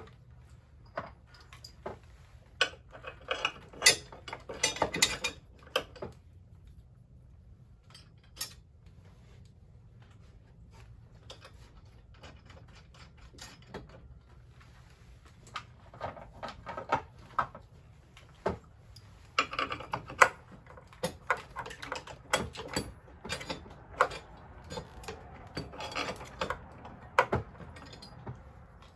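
Metal clinking and rattling of nuts, bolts and a steel backer plate being fitted and worked against a wooden rafter: 3/8-inch Grade 8 bolts for a permanent roof anchor. Scattered sharp clicks come in two busy spells, a few seconds in and through the second half, with a quieter stretch between.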